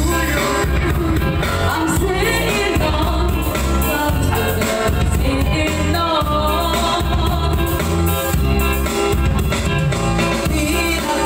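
A woman singing into a microphone, amplified through a loudspeaker, accompanied by a Yamaha electronic keyboard playing a steady beat with bass.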